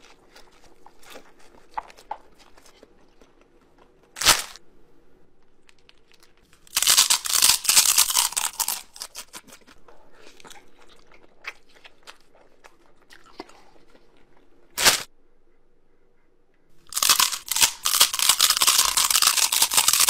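Close-up eating noises: bursts of slurping, biting and chewing spicy instant noodles, about seven seconds in and again from about seventeen seconds. Two short sharp clicks fall in the quieter stretches between.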